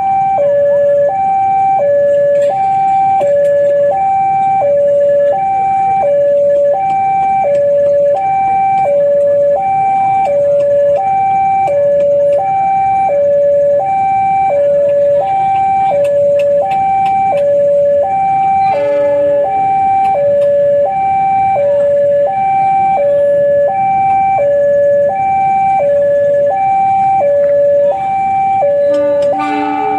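Railway level-crossing warning alarm sounding its electronic two-tone hi-lo signal, about one cycle a second: the crossing is closing for an approaching train. A deeper horn-like blast cuts in briefly about two-thirds of the way through and again near the end, as the diesel locomotive nears.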